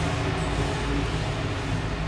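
Steady urban background rumble with a low hum, typical of traffic. A faint, short high chirp is heard about half a second in.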